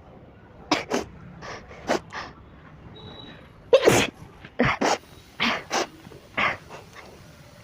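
A girl sneezing over and over, a quick run of short sharp sneezes with the loudest about four seconds in. The sneezes are set off by tickling the inside of her nose with grass.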